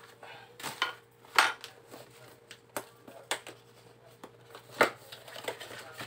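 A parcel's packaging being handled and opened by hand: a series of irregular crackles and snaps, loudest about one and a half seconds in and again near five seconds.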